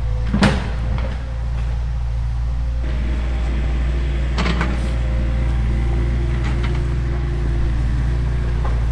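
Radio-controlled model machinery running with a steady low hum, with a few sharp knocks about half a second in, around four and a half seconds in and around six and a half seconds in.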